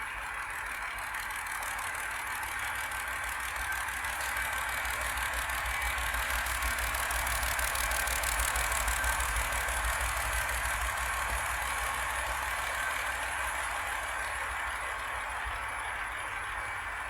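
An engine passing by. It grows louder to a peak about halfway through and then fades, with a fast low pulsing under a steady rushing noise.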